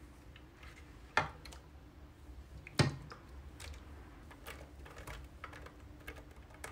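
Metal ladle knocking against the pans and baking dish as tomato-and-sausage sauce is spooned onto a lasagna sheet: two sharp knocks, about a second in and a louder one near three seconds. After them comes a run of soft ticks and scrapes as the sauce is spread.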